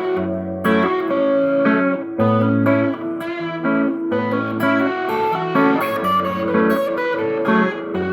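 Instrumental stretch of a song: guitar music with plucked notes and chords changing about every half second over a repeating low-note pattern, with no singing.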